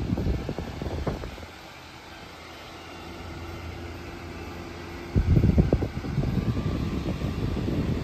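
Electric retro table fan running, its airflow buffeting the microphone in gusty low rumbles. The buffeting eases for a few seconds in the middle, where a faint steady hum is heard, then comes back loud about five seconds in.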